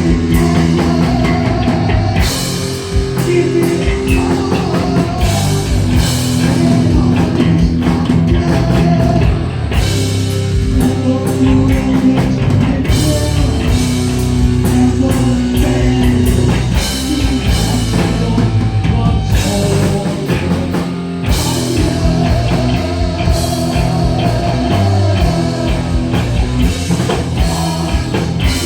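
Heavy metal band playing live at full volume: distorted electric guitars, bass and a pounding drum kit.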